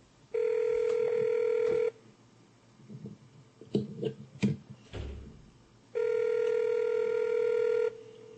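Telephone ringback tone: two long, steady rings about two seconds each and about four seconds apart. It is the sound of an outgoing call ringing at the far end, not yet answered.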